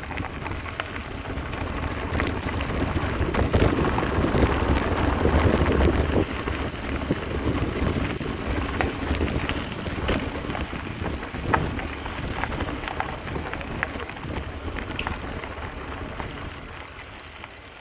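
Mountain bike riding over a rough dirt trail: tyres crunching on gravel, with scattered rattling clicks and wind rumbling on the microphone. It is loudest about four to six seconds in and fades away near the end.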